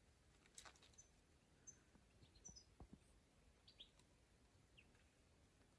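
Near silence with faint, scattered bird chirps: a few short high chirps about a second apart.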